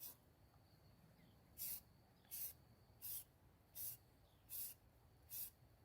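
Aerosol spray paint can sprayed in short squirts: six brief hisses, one about every three-quarters of a second.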